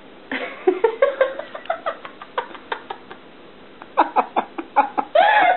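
A person giggling in short bursts, breaking into louder laughter about four seconds in.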